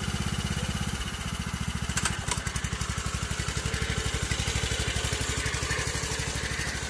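Kubota walk-behind rice transplanter's small engine running with a fast, even chugging beat, with a brief clatter about two seconds in.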